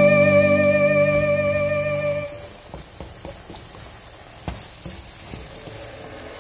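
Background music: a held instrumental chord with a slight waver that fades out about two seconds in, followed by a quieter stretch with a few faint light clicks.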